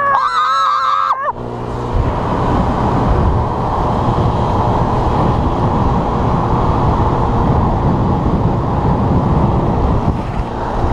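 Wind rush and road noise from riding a small scooter at speed in traffic, steady after a brief wavering vocal cry at the very start.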